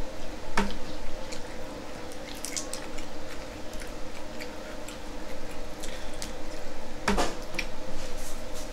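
Close-up eating sounds from a seafood boil: wet squishing and chewing of sauced seafood, with scattered small clicks and one louder click about seven seconds in.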